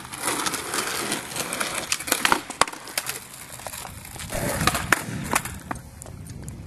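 Skateboard wheels rolling over rough asphalt, with several sharp clacks of the board striking the pavement as a trick is tried and the board gets away from the rider.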